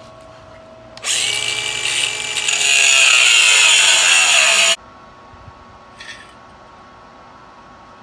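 Electric power tool working on the steel exhaust pipe. Its motor note sags under load, then a louder, harsher metal-cutting hiss takes over before it stops suddenly.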